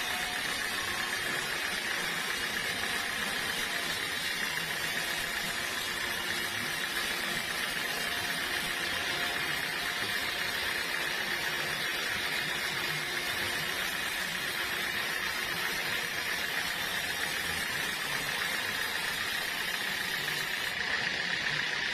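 Sawmill machinery running steadily: a continuous, even noise with no breaks or impacts.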